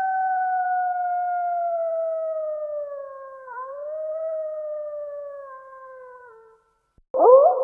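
Coyote howling: one long call slowly sliding down in pitch, with a brief break in the middle, fading out about six and a half seconds in. After a short gap a second howl starts with a quick upward swoop near the end.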